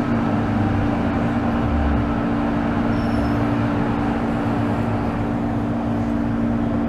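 Interior of an MTR M-train electric multiple unit, its onboard electrical equipment giving a steady hum of two close low tones over a low noisy background. No traction-motor whine: the train is standing or barely moving.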